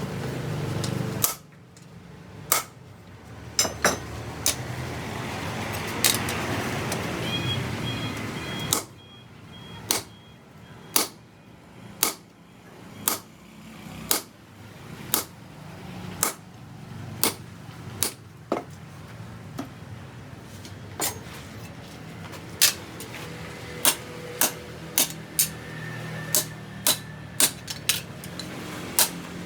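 Hand hammer blows on steel, one sharp ringing strike about every second, coming quicker near the end, over a steady low hum.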